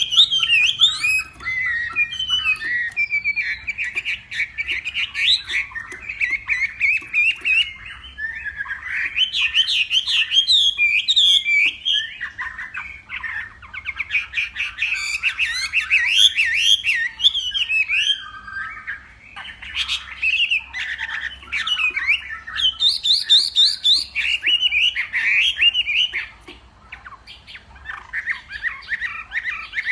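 Chinese hwamei (melodious laughingthrush) singing a long, loud, rapid run of varied whistled phrases, broken by brief pauses.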